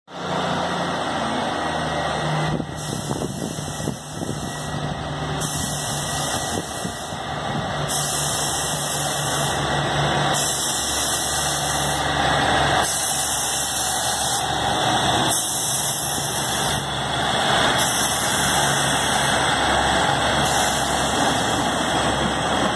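Class 150 Sprinter diesel multiple unit pulling away and passing close by, its underfloor diesel engines running steadily under power. The engine drone grows somewhat louder as the train goes past.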